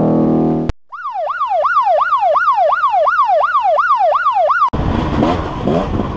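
A siren sound effect on an intro logo, wailing up and down about three to four times a second, which cuts off abruptly near the end. It gives way to a KTM dirt bike's engine running on a trail, its pitch rising and falling with the throttle.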